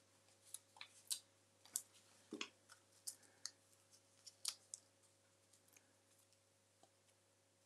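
Faint, scattered small clicks and light rustles of card and adhesive backing being handled as double-sided foam dots are peeled off and pressed onto a small scalloped card circle. The clicks thin out after about five seconds.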